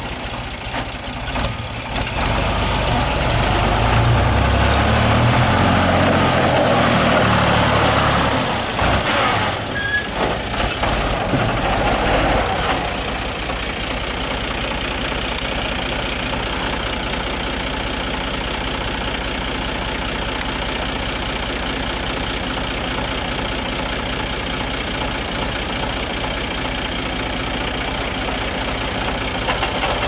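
Long 2510 DTC tractor's diesel engine running, louder and changing for about the first twelve seconds as the tractor drives, then settling to a steady idle.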